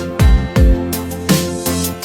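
Electronic background music with a steady beat of deep, falling bass kicks under held bass notes.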